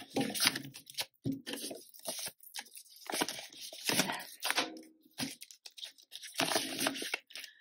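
Polymer banknotes and a clear plastic binder pocket being handled: irregular crinkling and rustling as notes are pulled out, counted and slid into a pocket, with a few sharp clicks.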